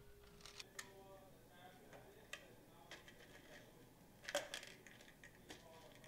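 Scattered light clicks and taps from a small plastic toy gumball machine being handled and worked, with the loudest quick rattle of clicks about four seconds in.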